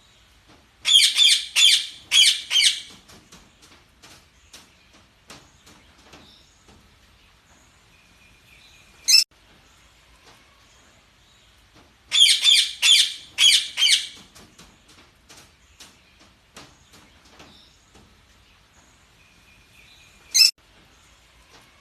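Budgerigars chirping and chattering: bursts of loud, high chirps about a second in and again about twelve seconds in, each followed by a single sharp call, with faint soft chatter between.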